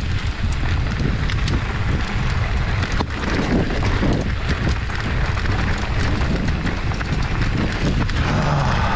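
Wind buffeting the microphone over the crunch and rattle of mountain bike tyres rolling on a loose gravel and rock track, with scattered sharp clicks from stones and the bike.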